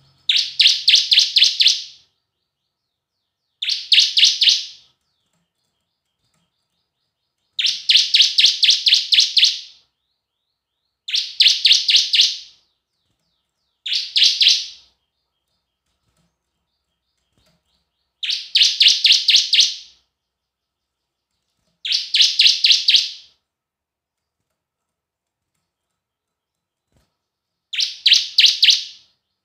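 Bar-winged prinia (ciblek) singing: eight short phrases, each a quick run of sharp, high chirps at about four a second, with a few seconds' silence between phrases. The song serves as a pancingan, a lure song played to caged ciblek to set them singing.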